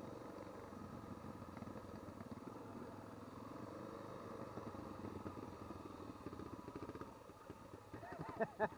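Adventure motorcycle engines running at low speed on a dirt track, the engine note drifting gently up and down with the throttle. A few louder, short uneven sounds come near the end.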